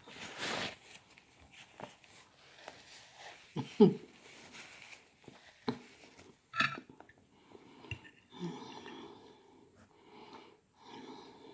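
Close-miked eating sounds: chewing and wet mouth noises with breaths, broken by a sharp click about four seconds in and another a little after six seconds.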